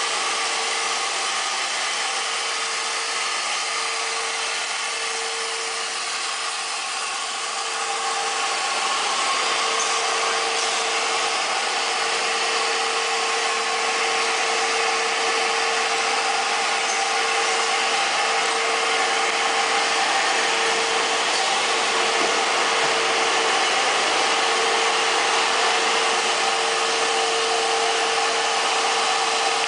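Steady running noise of a cable-coating extrusion line's machinery, with a constant hum tone, getting a little louder about eight seconds in.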